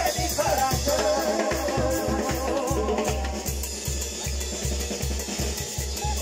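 Live band playing an instrumental passage of a dance song: a melody over drum kit and bass. About halfway through the melody drops out, leaving mostly the drum and bass beat.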